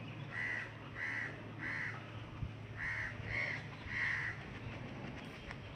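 A crow cawing six times: three caws about half a second apart, a short pause, then three more.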